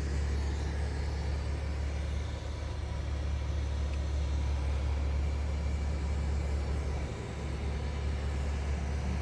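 Car engine idling with a steady low rumble, dipping briefly about seven seconds in.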